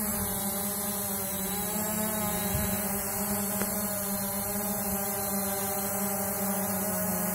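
SJRC F11 brushless quadcopter hovering close by, its four propellers giving a steady buzzing hum.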